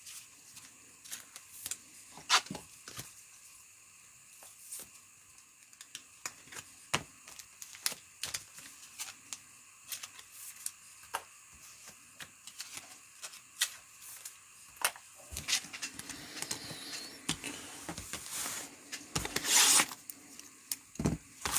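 Trading cards being handled and flicked through, with many small irregular clicks and snaps of card stock. A brief louder rustle comes near the end.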